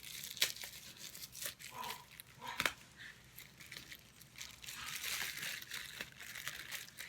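Crinkly paper wrapping rustling and tearing as an item is unwrapped by hand, in scattered sharp crackles with a longer stretch of rustling about five seconds in.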